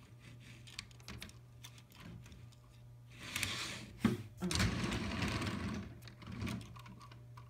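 HO scale model train running with a steady motor hum and light, rapid clicking of its wheels over the track. About four seconds in, a plastic car is handled on the track with rustling and a sharp knock.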